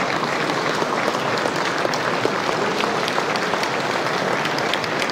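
Large seated audience applauding an award recipient, a dense, even patter of many hands clapping at a steady level.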